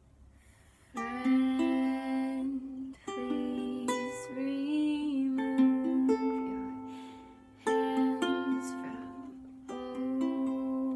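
Ukulele strummed in a C–G–Am–F chord progression, each chord ringing out and fading, starting about a second in after near quiet. A woman's voice sings softly along with it.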